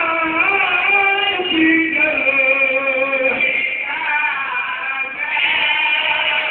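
A zakir's chanted majlis recitation: one voice sings long, drawn-out notes that waver and slide in pitch, with a short break about three and a half seconds in.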